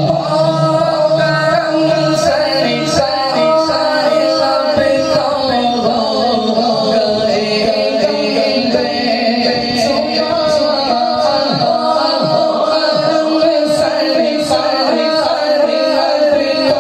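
A male voice singing a naat, an Urdu devotional poem in praise of the Prophet, with a melody that bends and glides over a held steady tone.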